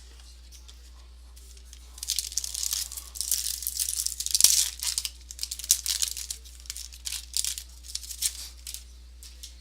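A trading-card pack's foil wrapper torn open and crinkled by hand, a run of irregular crackling and tearing noises starting about two seconds in, with one sharp click about halfway through.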